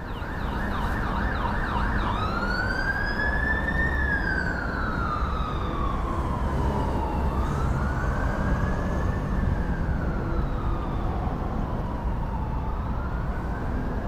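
Emergency vehicle siren over a steady low rumble of city traffic. It warbles rapidly for about the first two seconds, then switches to a slow wail that rises and falls repeatedly.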